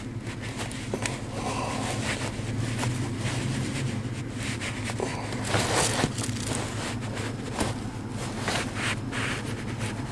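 Irregular rustling and scraping as a hand works the oxygen sensor wire's rubber grommet into its hole in the car's floor pan, a jacket sleeve brushing close by, over a steady low hum. The scraping gets denser for a moment a little past the middle.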